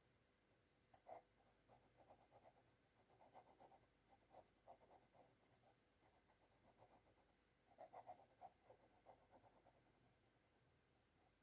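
Faint scratching of a drawing tool on paper, in short runs of quick strokes with a pause in the middle.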